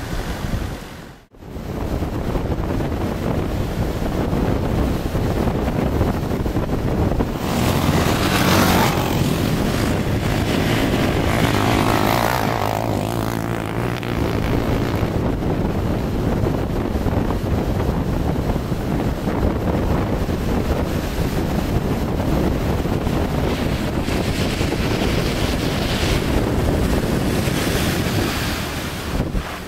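Wind buffeting the microphone over breaking surf, with a Land Rover Defender's engine running as it drives through the shallows along the beach. The engine note is clearest about a third of the way through.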